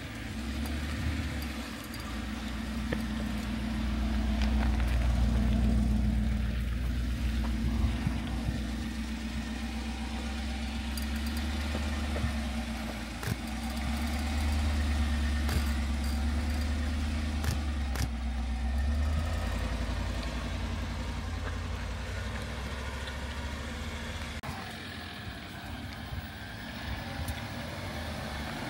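Jeep engine running at low speed while crawling a rocky off-road trail. Its low drone rises and falls with the throttle, louder twice, then eases off near the end. A few sharp knocks come from the rig working over the rocks.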